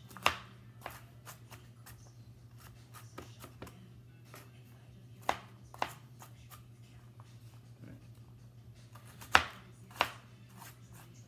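Chef's knife dicing carrot rounds on a plastic cutting board: irregular taps of the blade, with a few louder knocks, over a steady low hum.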